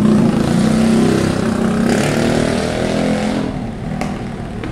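A motor vehicle's engine revving close by on the street, its note rising slightly, then fading away about three and a half seconds in.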